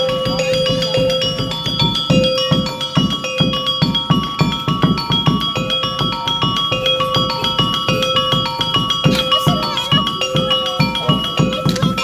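Javanese gamelan-style music: quick metallic mallet notes over a repeated held tone and a fast, steady drumbeat.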